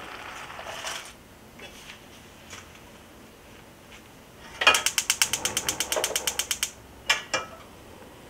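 Gas stove burner's spark igniter clicking rapidly, about ten clicks a second for two seconds, as the burner is lit, then two sharper knocks.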